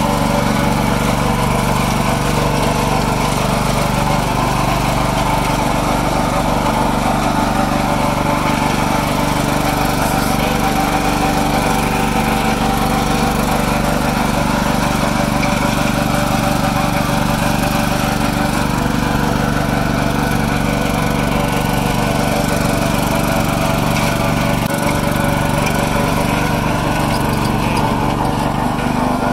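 Riding lawn mower engine running steadily at a constant speed, with no change in pitch.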